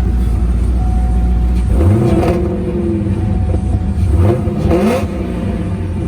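Supercharged 6.2-litre V8 of a 2012 Cadillac CTS-V with an aftermarket cam, headers and Borla exhaust idling, then revved twice: once about two seconds in and again a couple of seconds later, each rising in pitch before dropping back to idle.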